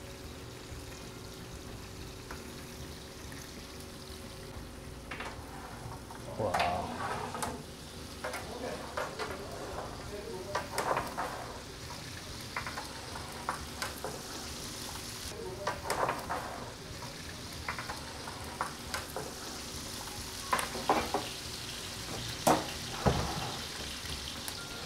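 Lamb pieces sizzling and spitting in their fat in a hot metal pan in a wood-fired oven, the hiss growing stronger after the first several seconds. Short metallic clatters and scrapes come now and then as the pan and meat are handled.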